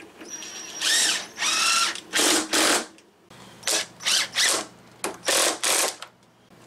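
A power drill run in a quick series of about ten short bursts, some carrying a whining motor pitch.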